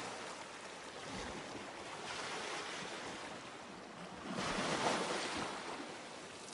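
Waves washing on a rocky shore, a rushing noise that swells and fades in surges, the loudest about two-thirds of the way through.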